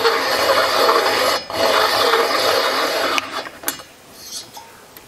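Hand-turned valve seat cutter scraping metal as it cuts the 45-degree exhaust valve seat in an air-cooled Porsche 911T cylinder head. There is a short break about a second and a half in, and the scraping stops about three seconds in.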